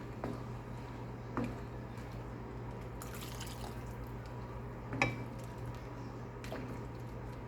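Spoon stirring sauce in a pot, knocking against the pot four times, with a brief hiss about three seconds in, over a steady low hum.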